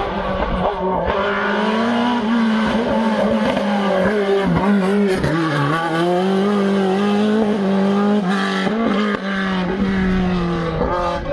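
Race car engine running hard at high revs on a hillclimb, its pitch holding steady with a few brief dips.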